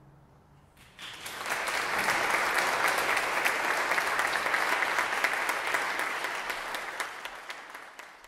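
Audience applauding, starting suddenly about a second in as the last note of the piece dies away, and tailing off near the end.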